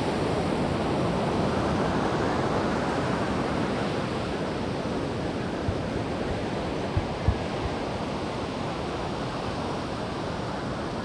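Steady wash of wind and sea surf on an open beach, with wind buffeting the microphone in a few short low thumps about seven seconds in.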